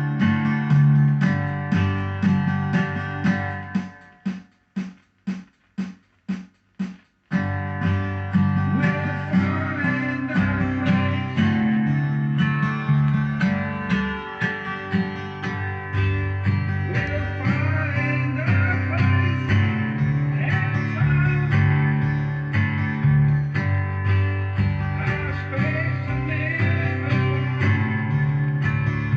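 Guitar-driven music with a steady low end. About four seconds in it breaks down to a run of short, separated chord stabs with silence between them, then the full arrangement comes back in about three seconds later.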